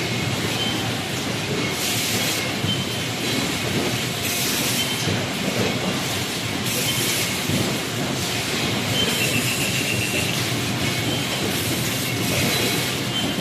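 A hall of paper plate forming machines running together: a steady, dense mechanical clatter, with a short high hiss of air recurring every two to three seconds.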